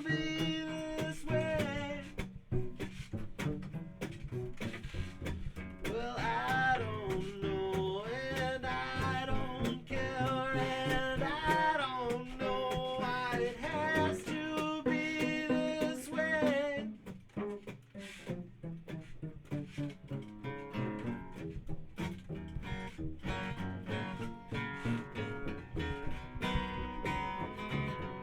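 Live acoustic guitar and bass playing, with a wordless sung melody over the middle; the music thins for a moment about two-thirds of the way through, then steady guitar strumming carries on.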